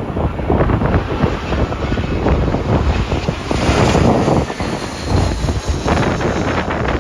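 Heavy wind gusting across the microphone, with the loudest gust about four seconds in.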